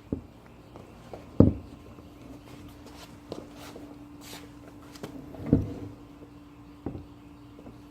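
A few separate dull thumps and knocks of footsteps and of handling a heavy part. A faint steady hum comes in about two seconds in.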